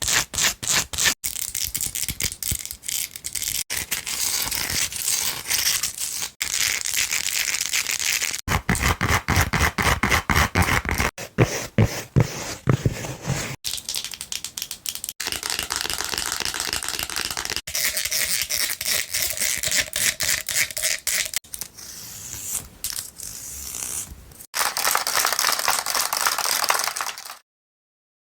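Fast, aggressive tapping and scratching with long fingernails on assorted objects in short clips that cut from one to the next every two to three seconds. A brief silence comes near the end.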